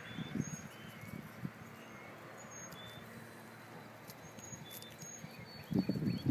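Canada goose pecking and nibbling at bread crumbs on dry grass: soft irregular pecks, with a quick run of them near the end. Faint high chirps of small birds are in the background.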